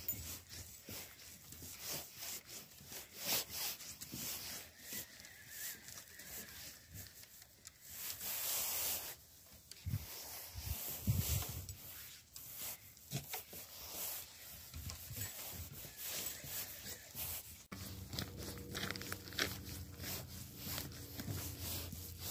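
Footsteps and scuffing on a wooden footbridge and path during a walk, with irregular rubbing and tearing-like noises. A steady low hum comes in near the end.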